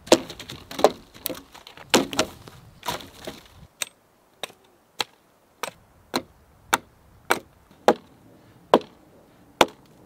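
Hatchet chopping into a dead log, with sharp wooden strikes. At first the strikes are busier, with chips rattling. Then, from about four seconds in, a steady run of single chops comes roughly every half second.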